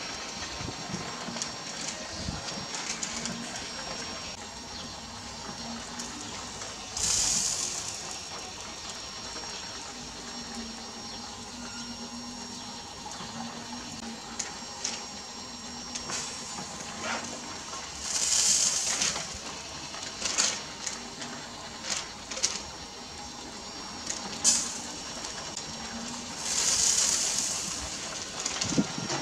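Charcoal rotisserie grill cooking pork: a steady low hiss of the hot coals, with three louder sizzles about a second long each, typical of fat dripping onto the embers, and a few sharp clicks in the second half.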